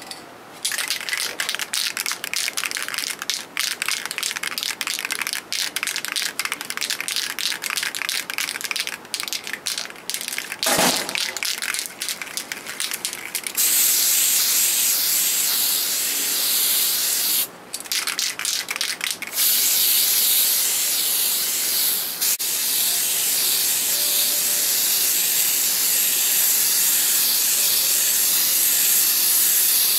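Aerosol spray-paint can hissing as blue paint is sprayed: short, choppy bursts for the first dozen seconds or so, then long continuous sprays, broken once about 17 seconds in. A single knock sounds about 11 seconds in.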